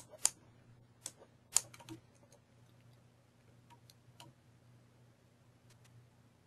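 Scattered faint clicks of a computer mouse and keys, in small clusters of two or three, over a faint steady low hum.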